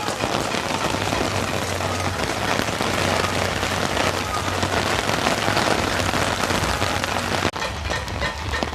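Heavy downpour of rain pelting down, a dense steady hiss. It cuts out for an instant about seven and a half seconds in.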